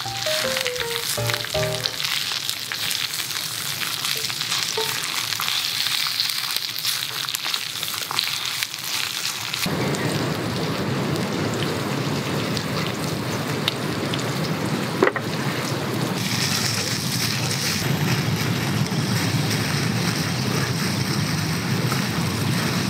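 Edamame and garlic sizzling in oil in a frying pan, a steady frying hiss that grows fuller and lower about ten seconds in, with one sharp click near the middle. Background music ends in the first couple of seconds.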